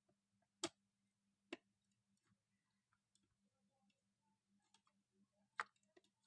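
Near silence with three short, sharp clicks from handling: about half a second in, again a second later, and near the end. A very faint steady low hum runs underneath.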